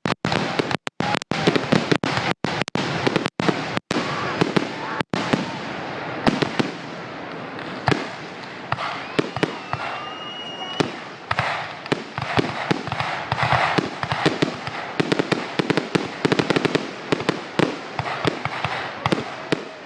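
Fireworks finale barrage: a rapid, dense run of bangs and crackling shell bursts, thickest in the first five seconds, with a brief whistle about ten seconds in.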